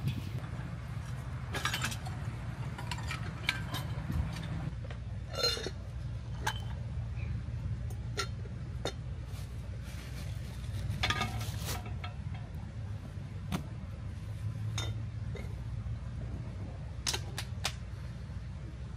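Scattered clinks and light knocks of glass tea cups, dishes and plastic containers being handled and set down, over a steady low rumble.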